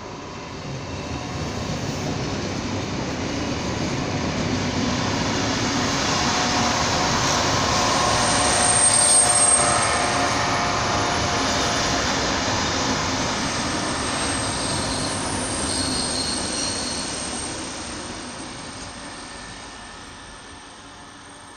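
RVR-built class 412 electric multiple unit rolling into the station at low speed. The sound of its wheels on the rails and its running gear builds as it comes closer, is loudest as it passes about nine seconds in, then fades as it draws away. A faint high whine runs over it.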